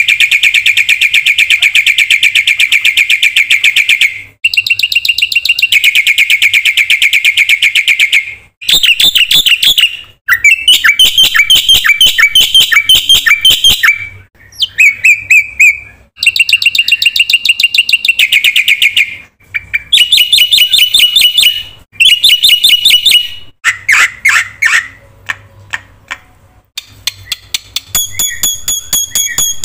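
Black-winged myna (jalak putih) singing loudly in fast, rattling chattering phrases a few seconds long. The phrases change from one to the next, with short breaks between them.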